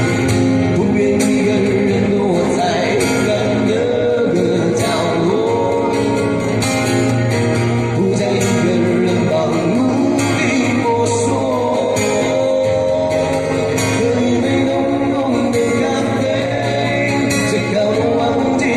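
Music from a Mandarin love ballad: guitar accompaniment under a male voice singing the melody.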